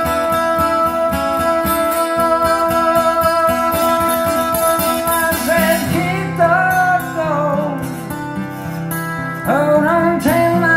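A guitar-led song played back through Canton Ergo 90 DC hi-fi loudspeakers: held guitar notes over a steady pulse, then a gliding melodic line over a deeper bass part coming in about six seconds in.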